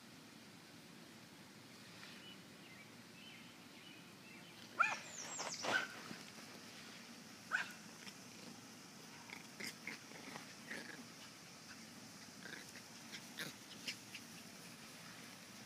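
Two puppies play-fighting, giving short high-pitched yips and squeals: a cluster of them about five seconds in, then scattered single yips.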